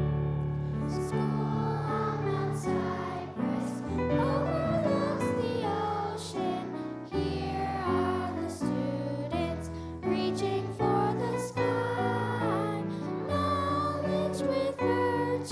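Two young singers singing a song with piano accompaniment.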